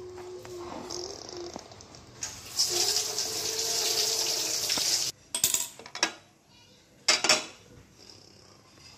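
Kitchen tap water running, briefly at first and then steadily for about three seconds, followed by a few sharp clanks of metal cookware.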